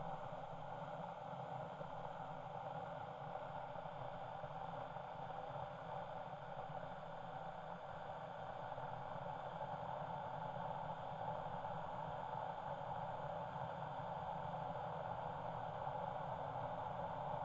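Kettle heating water: a steady hiss and rumble that grows slowly louder.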